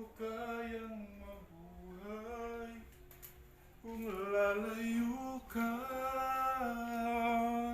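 A person singing a Tagalog love ballad unaccompanied. The voice holds long, drawn-out notes in two phrases, the second one longer and louder.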